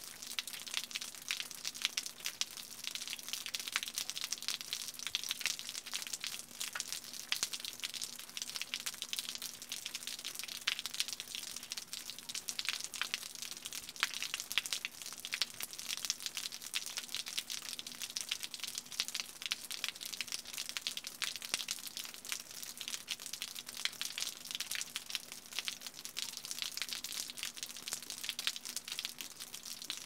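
Rain falling and dripping off a roof edge: a dense, steady crackle of countless drop impacts, with a faint steady low hum underneath.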